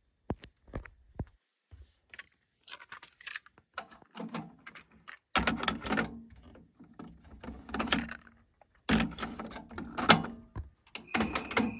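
Handling noise from a Sony TC-WE475 dual cassette deck: a few sharp plastic clicks, then several spells of rattling clatter as the deck's controls and cassette doors are worked.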